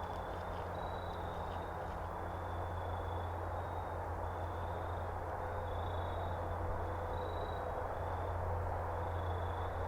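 Steady outdoor background noise with a low rumble, and faint high-pitched trills that come and go every second or so.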